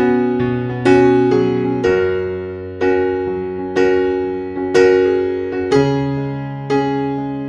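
Slow piano music, chords struck about once a second, each ringing and fading before the next.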